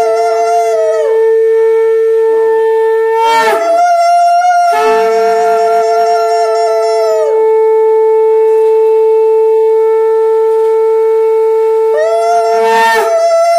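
Conch shells (shankha) blown in long held blasts, two of them at different pitches sounding together, the higher one sliding down and stopping before the lower. The blowing breaks off for breath about 3.5 seconds in and again near the end, then starts again, as is done to mark the Lakshmi puja.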